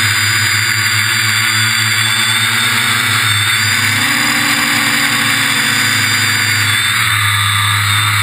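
Quadcopter's electric motors and propellers buzzing steadily in flight, heard up close from a camera mounted on the frame. Its high motor whine shifts in pitch about halfway through and again near the end.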